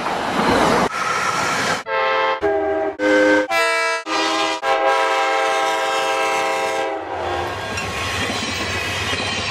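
Train horn sounding several short blasts and then one long blast held about two seconds, amid the running noise of a passing train with wheel rumble.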